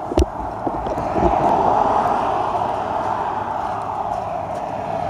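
A couple of thumps, then steady road and engine noise inside a moving Toyota Land Cruiser, growing louder about a second in as it picks up speed.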